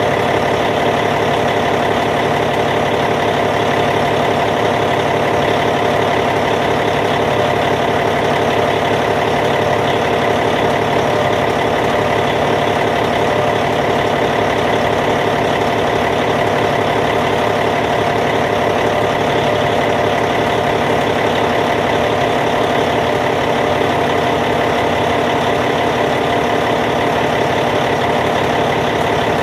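Caterpillar C15 diesel engine in a D8T bulldozer idling steadily.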